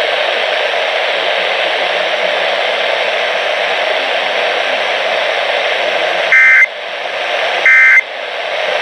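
Steady radio static hiss, then about six seconds in two short, loud data bursts about a second and a half apart. These are Emergency Alert System end-of-message (EOM) tones closing the test transmission.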